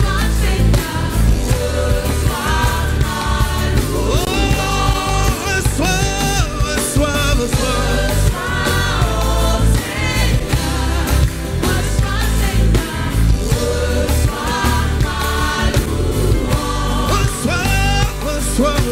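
Gospel worship song performed live: voices singing together over a band with a steady bass beat.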